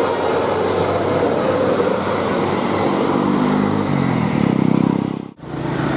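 A large bus's engine running as it passes, with a low pitched drone that steps down in pitch over the last few seconds; the sound drops out abruptly for a moment about five seconds in.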